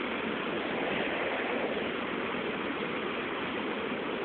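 Steady rushing of river water, an even hiss that doesn't change.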